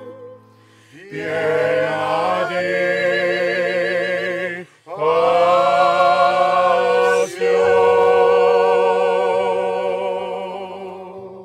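Group of voices singing a Tabarchino folk serenade in harmony, in two long held phrases with wide vibrato. A short break falls in the middle, and the second phrase fades away near the end.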